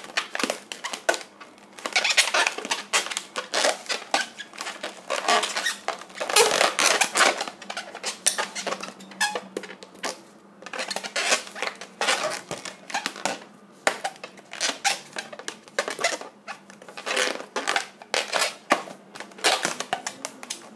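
Latex modelling balloon squeaking and rubbing under the hands as it is folded, twisted and squeezed, in quick runs of squeaks with short pauses between them.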